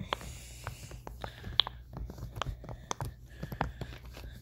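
Irregular series of sharp clicks and pops as the bubbles of a silicone pop-it fidget toy are pressed by hand, about fifteen in a few seconds.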